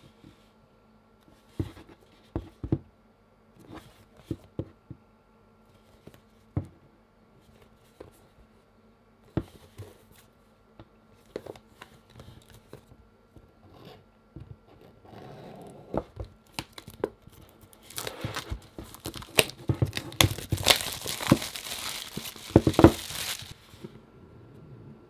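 Scattered taps and clicks of hands handling a cardboard box, then plastic shrink wrap being torn and crinkled off it, loudest for several seconds in the last third before stopping.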